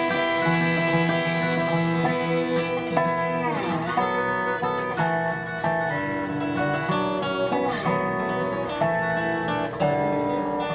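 Instrumental dobro music: a resonator guitar playing a bluegrass-style tune, with notes sliding down in pitch about four seconds in.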